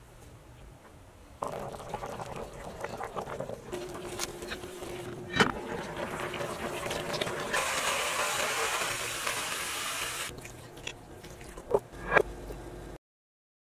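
Kitchen sounds at an enamelled cast-iron pot: a steady rush of water that grows loudest past the middle. A sharp clank of the pot's lid comes about five seconds in, and two knocks near the end as chicken pieces are set into the pot, before the sound cuts off suddenly.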